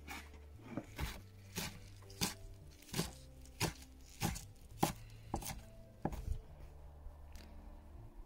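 Kitchen knife chopping spinach on a wooden cutting board: about ten evenly spaced chops, a little under two a second, stopping about six seconds in.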